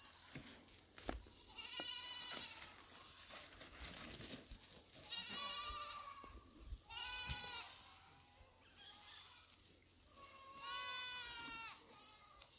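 Goats bleating: four separate bleats spread through a dozen seconds, the last one the longest. Light clicks and rustles are heard between the calls.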